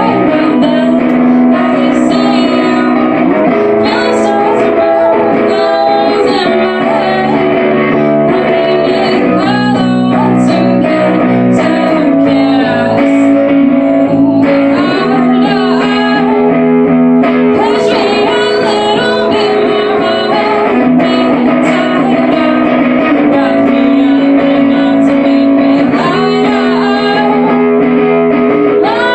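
Live emo rock song played loud: guitar chords that change every few seconds, with a woman singing over them.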